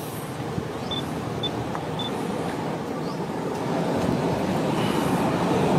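Steady outdoor background noise, an even rushing hum that grows slightly louder, with three short high chirps about half a second apart starting about a second in.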